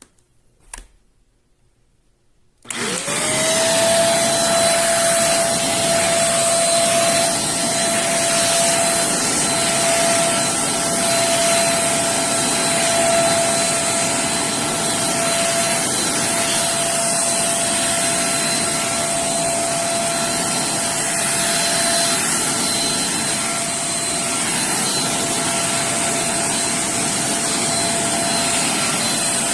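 Dibea handheld bed vacuum cleaner switched on: a click, then its motor spins up quickly into a steady whine with a loud high hiss of rushing air, running without change.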